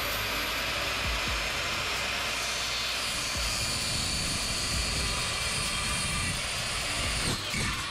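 Electric chop saw with a fine-tooth blade running at full speed and cutting through 1/16-inch aluminum angle. It is switched off near the end, and its whine falls away as the blade winds down.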